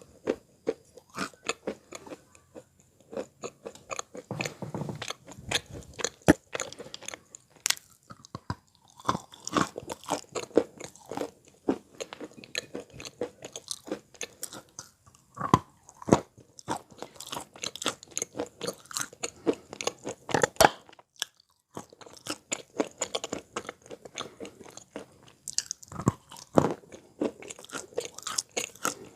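Wet Belogorye chalk being bitten and chewed close to the microphone: rapid crunches, one after another, with a brief pause partway through.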